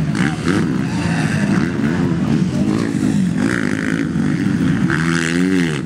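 Several motocross bikes racing on a dirt track, their engines revving up and down as they climb and clear a jump. Near the end one bike close by revs up hard and then drops off.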